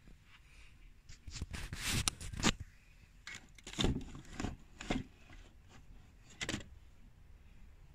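Handling noise: scraping and rustling from things being moved close to the microphone, in three short spells, about a second in, around the middle and near the end.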